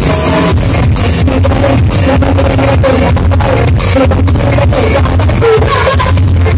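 Live amplified music: a woman singing into a microphone over a loud band backing with strong bass.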